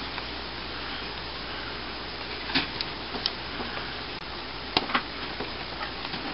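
Hands pressing and tucking crescent roll dough over egg and cheese on a baking dish: quiet handling noise over a steady hiss, with a few light clicks and taps, two near the middle and one a little later.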